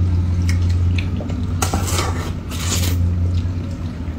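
Cup noodles being eaten with chopsticks: two loud slurps about halfway through, with small clicks of chopsticks against the paper cups, over a steady low hum.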